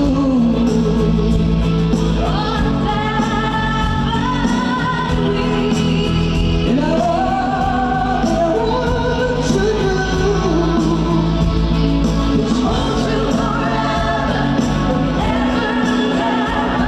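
Live pop-rock band performance: a singer holds long, wavering sung notes over sustained bass and a steady cymbal beat.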